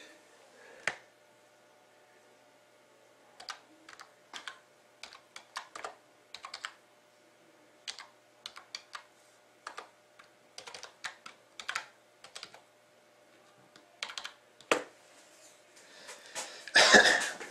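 Typing on an HP computer keyboard: irregular runs of short keystroke clicks with pauses between them. A short, louder noise comes near the end.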